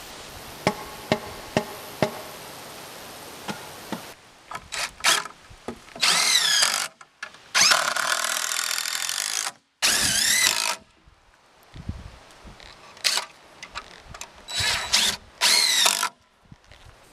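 Cordless drill driving screws through a metal joist hanger into a wooden platform frame, in several short runs whose motor pitch wavers up and down. Before the drilling, a few sharp knocks.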